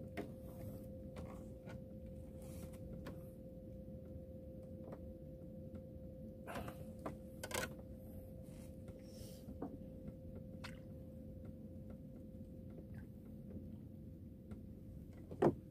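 Quiet steady low hum with a faint constant tone, over which come scattered soft clicks and taps of hands handling fishing line and tackle in a small outrigger boat, a few louder ones about seven seconds in.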